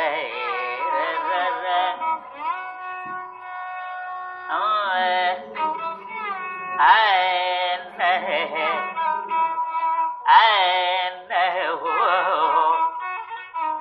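Carnatic classical music in raga Bahudari: ornamented melodic phrases with wavering slides and held notes, coming in separate phrases a second or two long.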